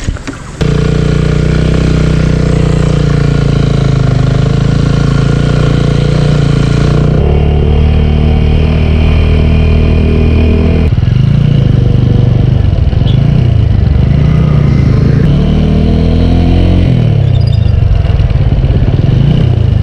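Motorcycle engine running while riding, the rider's own bike heard close up. After a couple of abrupt changes in the sound, the engine note rises and falls repeatedly as the throttle is worked.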